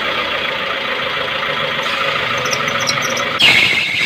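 Car engine running with belt noise, then about three and a half seconds in a loud, high squeal starts suddenly: the power steering belt slipping as the steering is held at full lock. Under that load the power steering pump pulley sticks and the belt spins over it; the mechanic finds the belt loose.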